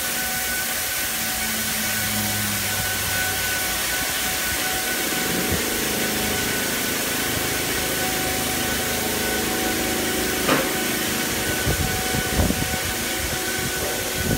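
Oasis XP touchless in-bay automatic car wash spraying an SUV on its wax pass: a steady hiss of spray over the pump's steady whine. A few short knocks come in the second half.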